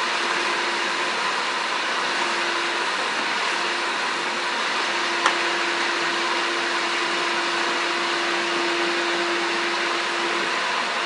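Shop-Vac canister vacuum running with its electric power head being pushed over a hard floor: a steady rush of air with a steady tone in it. One sharp click about five seconds in.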